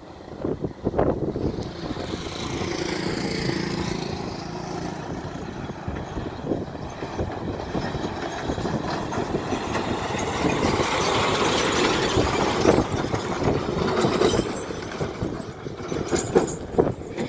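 Heavy diesel goods truck approaching and passing close by: engine rumble and tyre noise build steadily, are loudest just past the middle as it goes by, then ease off as it moves away.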